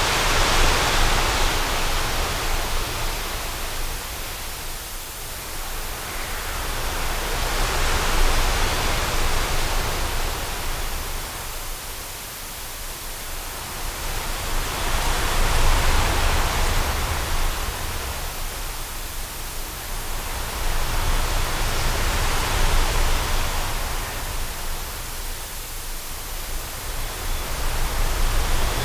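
Strong wind gusting in slow waves, swelling and dying away about every seven or eight seconds over a steady low rumble.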